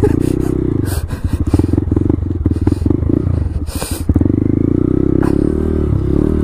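Small motorcycle engine running and revving up and down as the bike is ridden across snow, with a short hiss about four seconds in.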